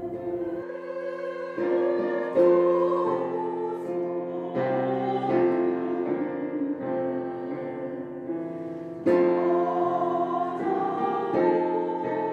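Slow, lyrical music: a melody of long held notes over piano chords, with fresh chords struck about two seconds in and again about nine seconds in.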